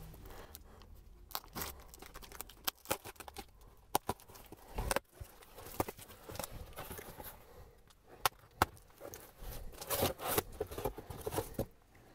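A heavily taped cardboard LP mailer being cut and torn open: packing tape ripping and cardboard crinkling, in irregular rasps and sharp snaps.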